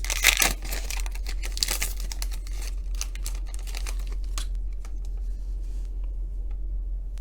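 Crinkling and tearing of a foil trading-card pack wrapper being ripped open, loudest in the first two seconds, then fainter rustling and clicks as the cards are handled.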